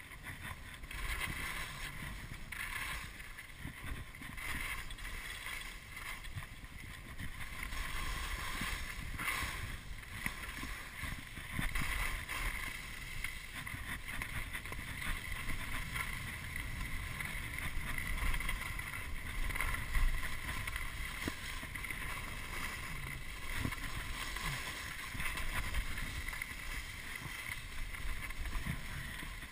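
Skis hissing and scraping over packed snow on a downhill run, with wind rushing and buffeting over the camera microphone. The noise swells and eases unevenly with the turns.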